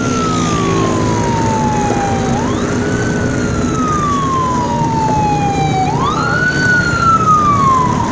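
Emergency vehicle siren wailing. Each cycle climbs quickly and then slides slowly down, starting again about every three and a half seconds, over a steady low rumble.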